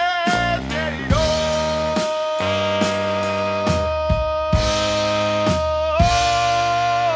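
Brass band playing live: a quick run of notes, then a long held chord over sustained bass with regular drum hits. The chord swells slightly near the end.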